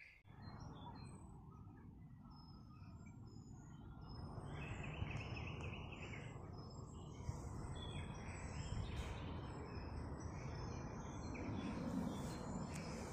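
Outdoor ambience: a steady low rumble of wind on the microphone, a little stronger from about four seconds in, with faint bird chirps here and there.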